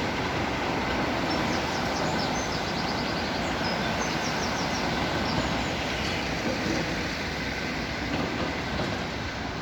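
A train running along the line with a steady rumble and rush, without pause.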